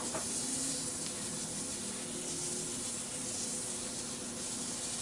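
Paper towel rubbing abrasive finishing paste onto a walnut bowl turning at low speed on a wood lathe: a steady, even hiss of friction over the low hum of the lathe motor.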